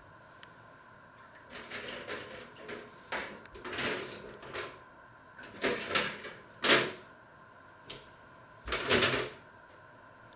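Washing up by hand at a stainless steel sink: a sponge scrubbing and dishes or utensils knocking, in a run of uneven bursts, the sharpest knock about two-thirds of the way through.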